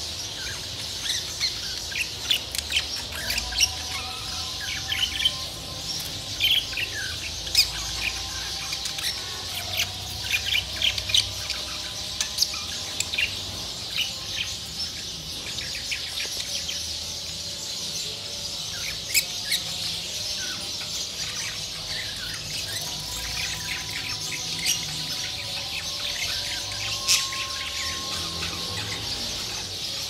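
A flock of caged budgerigars chattering without a break: a dense warbling mixed with many short, sharp chirps.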